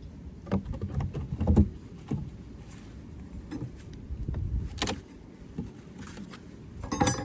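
Wooden Layens hive frames being handled: scattered knocks and clicks of wood on wood, with a sharper click about five seconds in and a quick cluster of clicks near the end.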